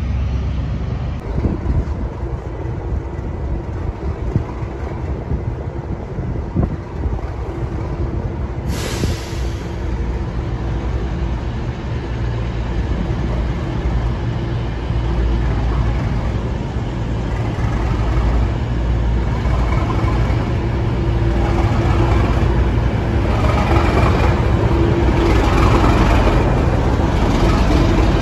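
A departing train fading away, then a Class 37 diesel-electric locomotive approaching and running slowly past along the platform, its English Electric twelve-cylinder engine running with a steady low drone that grows louder towards the end.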